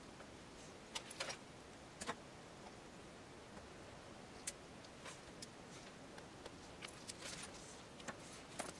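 Small, sharp clicks and taps of a steel spring bar tool and spring bars against a plastic watch case as a resin strap is seated in the lugs, with light handling noise. The clicks are scattered and irregular, the last ones near the end.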